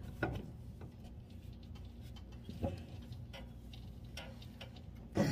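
Faint, scattered metallic clicks of a wrench on a mower blade bolt as the blade is tightened, over a low steady hum.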